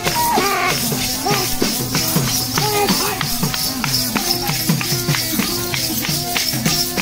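Live Adivasi folk dance music: a drum beating a quick steady rhythm of strokes that drop in pitch, over a steady held drone, with jingling rattle-like percussion on top. A melody line slides up and down in the first couple of seconds.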